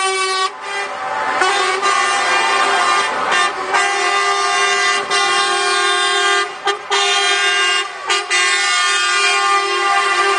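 Truck air horns sounding one long, loud, steady blast after another, broken only by a few short gaps, as lorries pass in a convoy.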